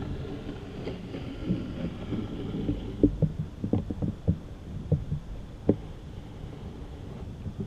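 Wind buffeting the camera microphone, a low steady rumble, with a run of short dull thumps from about three seconds in.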